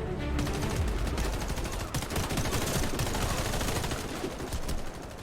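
Dense, rapid gunfire, shots following one another almost continuously, with a brief lull near the end.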